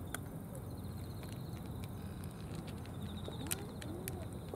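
Cats crunching dry kibble from plastic trays: scattered sharp clicks, the loudest about three and a half seconds in, over a steady outdoor background hiss.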